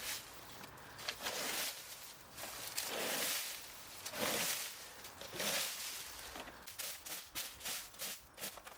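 Dry leaves and cut branches rustling in four or five swishing swells, then a quick run of small cracks and clicks near the end.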